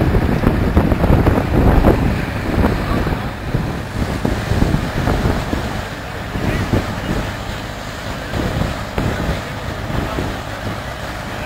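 Belt-driven threshing machine running with sheaves of corn being hand-fed into it, an irregular clattering and rustling over a steady mechanical din, loudest in the first couple of seconds.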